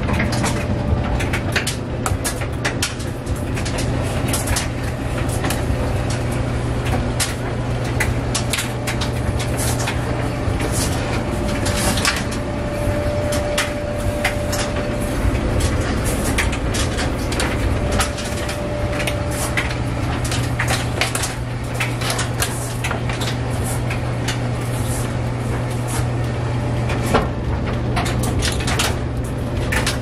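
Clothes dryer running in its cool-down stage near the end of the cycle: a steady motor hum with the drum turning and frequent light knocks and clicks of the load tumbling against the drum.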